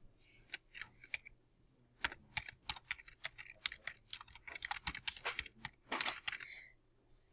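Computer keyboard typing: a few key presses at first, then a quick, dense run of keystrokes from about two seconds in that stops shortly before the end.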